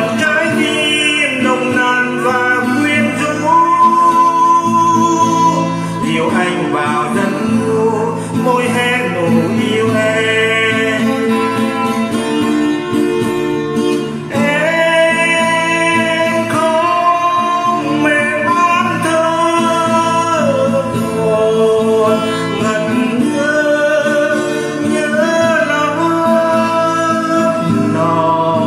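A man singing a Vietnamese love song to acoustic guitar accompaniment.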